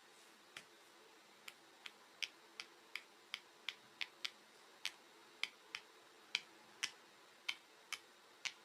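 Silicone pop it fidget toy bubbles being pressed and popping one after another, about eighteen sharp little pops at an uneven pace of roughly two a second.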